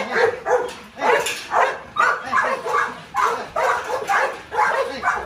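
Dogs in a kennel barking rapidly and repeatedly, about three barks a second.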